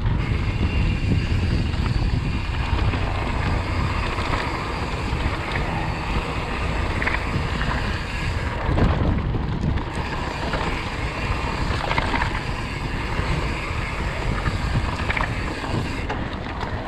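Wind rushing over the microphone while on the move, a steady low rumble with a rushing hiss above it.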